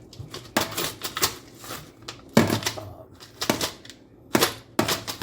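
Brass rifle cases and metal nuts and bolts clinking and knocking together in a jar, about six sharp, irregular clinks.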